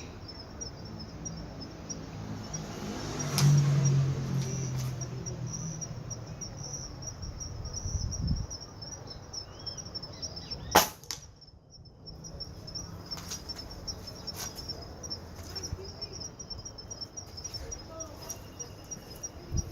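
One sharp shot from a Gamo Black Fusion 5.5 mm air rifle, a single crack about halfway through. Steady insect chirping runs underneath.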